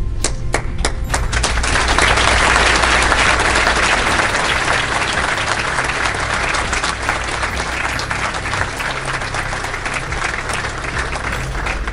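Audience applauding. A few scattered claps at first build within about two seconds into full, steady applause that slowly thins toward the end.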